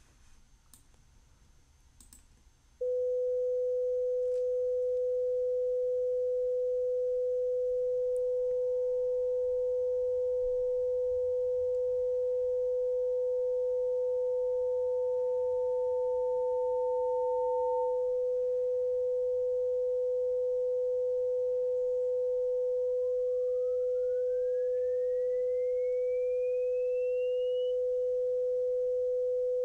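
Pure 500 Hz test tone that starts about three seconds in and holds steady. About eight seconds in a fainter, higher second sine tone joins it, swells louder for a few seconds, drops back, and later glides steadily upward in pitch before cutting off. This is a frequency-masking demonstration: the second tone is masked by the 500 Hz tone until it climbs high enough to be heard.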